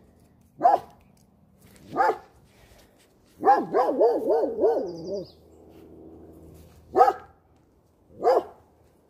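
Dog barking: a single bark, then another, a quick run of about six barks near the middle, then two more single barks.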